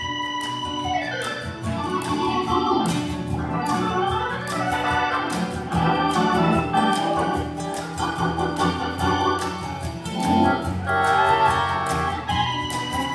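Live band playing an instrumental passage: an organ-toned keyboard carries shifting runs of notes over bass, with a steady beat of percussion hits.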